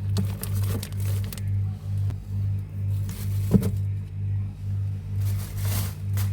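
Background music with a steady low pulsing beat, about two beats a second. A sharp knock comes about three and a half seconds in, and a brief rustle near the end.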